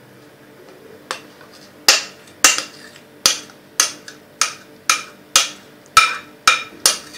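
A kitchen utensil knocking repeatedly against a mixing bowl while cheesecake filling is poured out and scraped into a pan: sharp taps, starting about a second in, then about two a second, each with a short ring.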